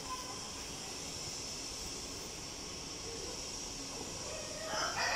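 Steady background hiss with no speech. Near the end a louder sound made of several steady tones comes in.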